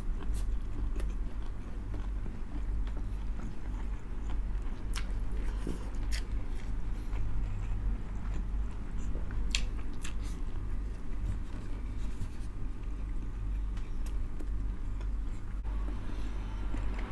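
Close-miked wet chewing, lip smacks and small mouth clicks of two people eating soft pork blood stew (dinuguan) with rice by hand. A steady low hum runs underneath.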